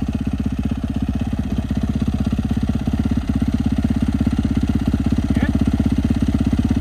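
Dirt bike engine idling steadily with an even pulse, held ready for a burnout with its rear wheel against an ATV tire.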